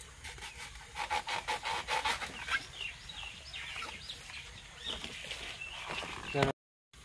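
A chicken clucking in a quick run of short notes, then short chirping calls, over the rustle of taro stalks being handled. A sharp knock near the end, followed by a brief gap of silence.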